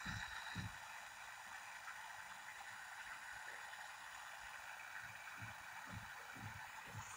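Onlite L-SS52 pocket radio's small speaker hissing with faint FM static while tuned to 87.5 MHz, with soft low thumps scattered through.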